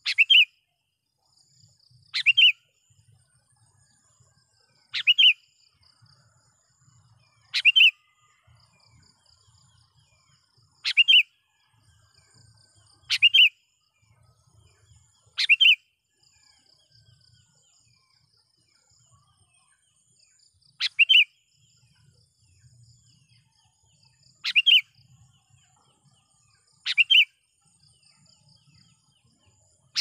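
Sooty-headed bulbul (kutilang) giving a short, loud call roughly every two to five seconds, about ten calls in all. It is a tethered decoy bird calling to draw rival wild bulbuls. Faint high insect-like chirring runs underneath.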